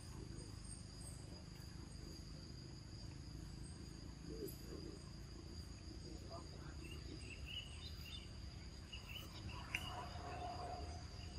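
Faint outdoor insect chorus: several steady, even high-pitched tones held throughout over a low hum, with a few faint chirps in the second half and a single sharp click near the end.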